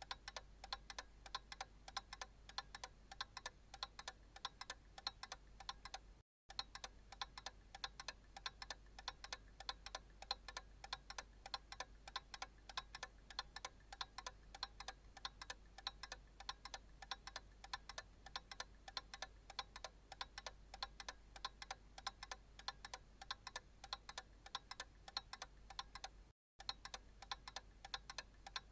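Analog clock ticking steadily in an even tick-tock, faint. The ticking drops out for a split second twice.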